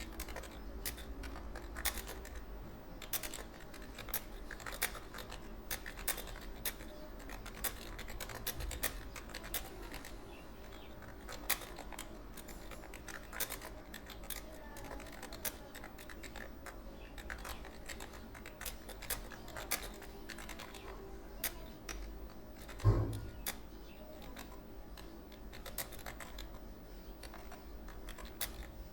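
Computer keyboard being typed on continuously, quick irregular key clicks several a second, with one louder thump about three-quarters of the way through.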